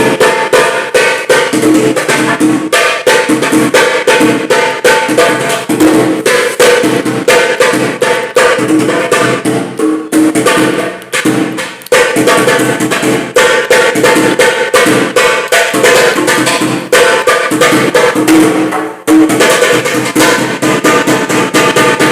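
Funk carioca music with busy drum and percussion hits in a fast, steady beat and little deep bass. It dips briefly twice, around the middle and again about nineteen seconds in.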